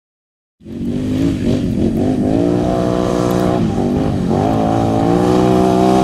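Can-Am Outlander 800 XMR ATV's V-twin engine running through a Speedwerx slip-on exhaust under way, coming in abruptly just over half a second in. Its pitch dips briefly twice as the throttle comes off and back on, then holds high and steady.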